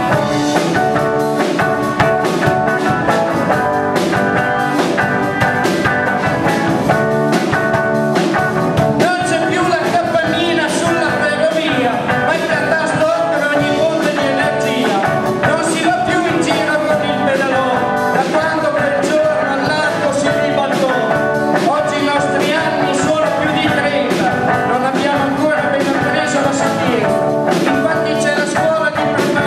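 Live band playing a song on drum kit and guitar, with a man singing into a microphone over it from about ten seconds in.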